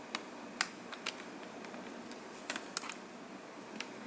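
A flathead screwdriver prying at a laptop keyboard's plastic clips: a scattering of small, sharp clicks and ticks, irregularly spaced.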